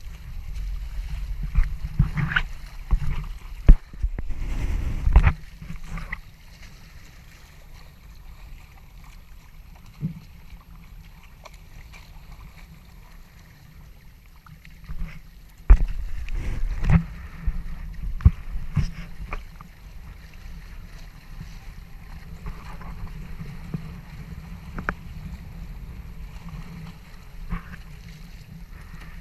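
Hobie Tandem Island sailing trimaran pushing through chop: water rushing and splashing along the hulls, with sharp slaps of waves against the hull, loudest in two spells early on and midway, over wind buffeting the microphone.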